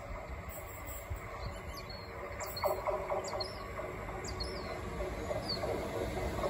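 Electric multiple-unit passenger train approaching a station, its rumble growing steadily louder as it nears. Small birds chirp several times over it.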